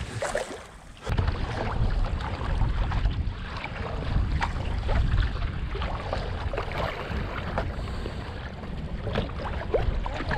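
Wind buffeting the microphone, with paddle splashes and small waves slapping against a playboat kayak's hull in choppy water. The wind noise comes in abruptly about a second in.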